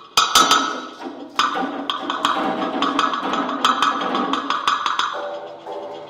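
Percussion music: a cluster of sharp struck hits at the start and another just over a second in, then many light clicks over sustained ringing pitched tones that die away near the end.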